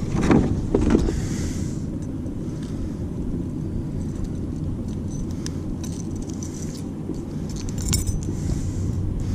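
Steady low wind rumble on the microphone, with a few light metallic clinks and clicks, a cluster of them about eight seconds in, from the flutter spoon's treble hook and split ring rattling as the hooked bass is handled.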